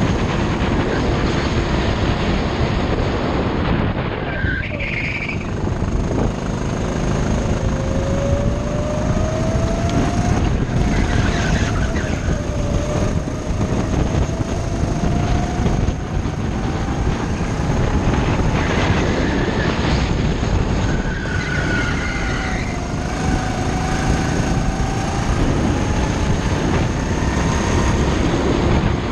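Go-kart engine running at speed on a track, its pitch rising along the straights and dropping back into the corners, over a steady loud rushing noise.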